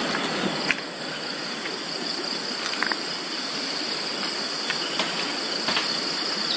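Night-time insect chorus: a steady high-pitched buzz with a faster pulsing trill above it, over an even background hiss, with a few faint clicks.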